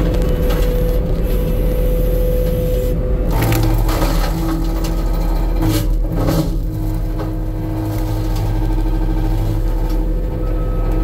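Skid-steer's Carolina Attachments SDXC-10 disc mulcher spinning and grinding down a 6-inch pine tree over a steady machine whine. The whine drops in pitch about three seconds in as the cutting starts. Loud bursts of crushing and splintering wood come around three to four seconds in and again around six seconds.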